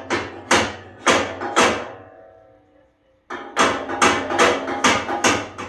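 A run of sharp hammer blows, about two a second, that stops for a moment midway and then comes back as a quicker series of strikes.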